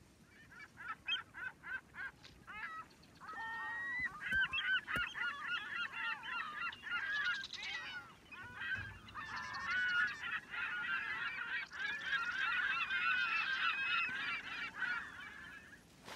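A flock of birds calling with honking calls. At first a few separate calls, then from a few seconds in a dense chorus of many overlapping calls, which thins briefly in the middle and stops just before the end.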